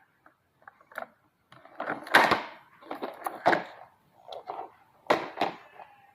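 Packaging being handled during unboxing: a few clicks, then rustling and knocking in irregular bursts, the loudest about two seconds in.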